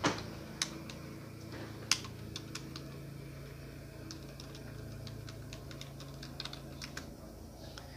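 Typing on a computer keyboard: irregular key clicks, with a few louder taps in the first two seconds and quick runs of keystrokes around the middle and near the end, over a low steady hum.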